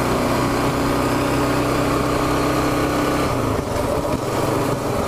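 Kawasaki KLR650 single-cylinder motorcycle engine running at a steady cruise under wind and road rush on a helmet-mounted camera; the steady engine tone drops away about three seconds in.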